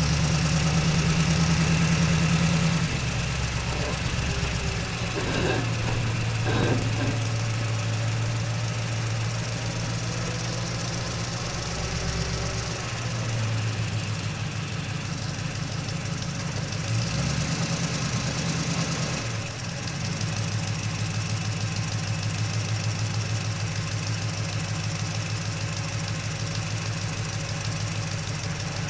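Truck engine heard from inside the cab while the truck drives slowly and fairly softly. The low engine note steps up and down several times as the load changes.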